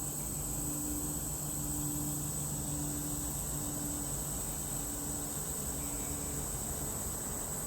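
Insects in the woods chirring in a steady, high, unbroken drone, over a low hum with a faint tone that pulses on and off about once a second.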